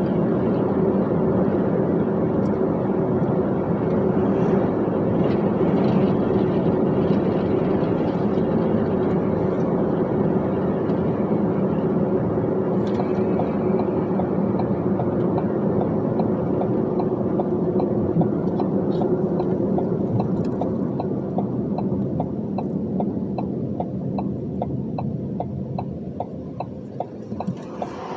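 Dump truck's engine running with road noise. It falls quieter over the last several seconds, and an even ticking comes in near the end.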